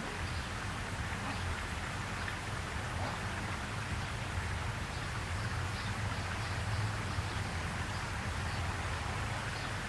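Steady outdoor background hiss with a low rumble underneath and faint, scattered high chirps.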